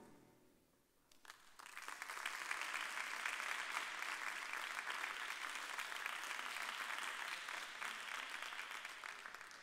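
Audience applause. It starts about a second in, swells and holds steady, then dies away near the end.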